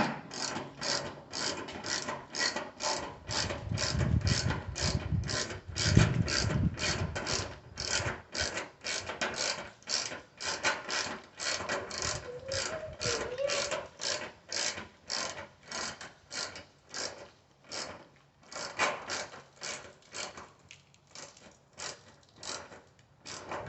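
Hand ratchet with a 10mm socket clicking in quick, even strokes, about two a second, as it runs a fender bolt in, with a short pause near the end before the clicking resumes. A few dull knocks sound a few seconds in.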